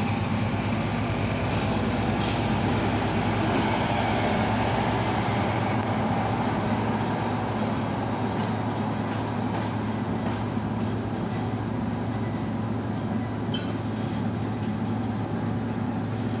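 Heavy diesel engine running at a steady speed: a constant deep hum, heard from inside a rail vehicle's cab, with a few faint clicks.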